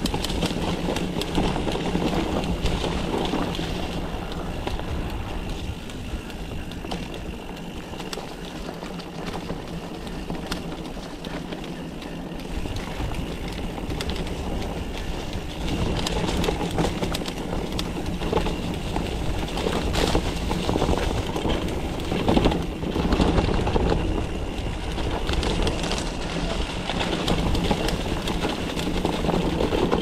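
Mountain bike rolling fast down a dirt trail: tyres running over dirt and rocks with constant rattling and small knocks from the bike. The noise swells in the second half, with the sharpest bumps a little past twenty seconds in.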